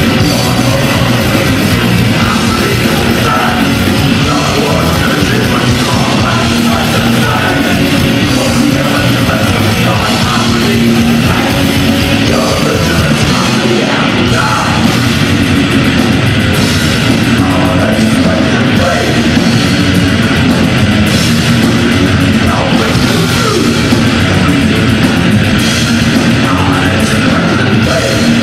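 A heavy metal band playing loud and without a break, live: distorted electric guitars over drums.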